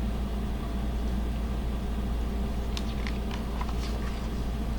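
Steady low background hum with a few faint clicks in the middle.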